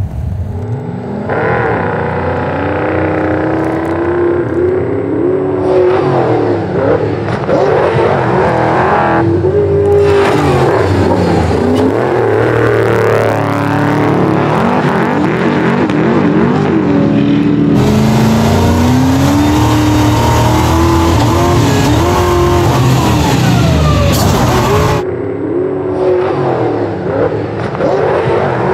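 Off-road race trucks under full-throttle launch, their engines revving hard and pulling up through the gears, the pitch climbing and dropping back at each shift. The sound jumps abruptly several times between segments.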